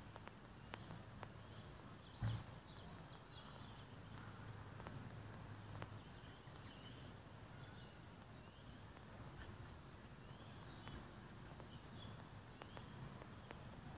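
Faint outdoor ambience with small birds chirping now and then, high and short, over a low steady hum that fades out about six seconds in. A single thump about two seconds in is the loudest sound.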